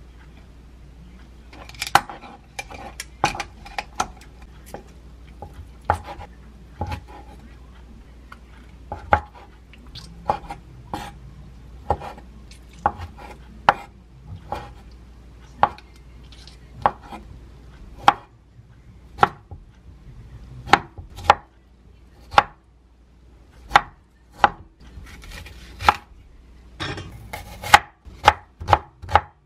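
Kitchen knife chopping on a wooden cutting board: irregular knocks a second or less apart, first slicing whelk meat, then quickening into rapid cuts through a green onion near the end.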